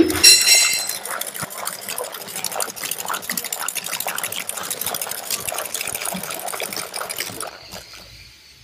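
A bank of wired electrical contactor relays clattering, a fast dense run of clicks that thins out and fades near the end. A short ringing tone sounds at the very start.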